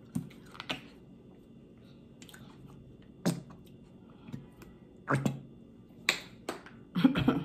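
Plastic squeeze bottle of white dressing being handled and squeezed, giving several short, sharp clicks and sputters spread out with pauses between them, the busiest cluster near the end.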